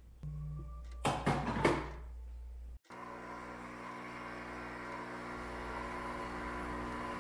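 Three quick clattering knocks about a second in. After a sudden break, a steady humming drone with several pitched tones runs on.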